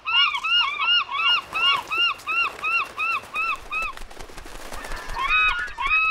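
Cartoon seagull calls: a quick run of about a dozen short, arched squawks, about three a second, then three more near the end, over scattered light tapping of gulls pecking.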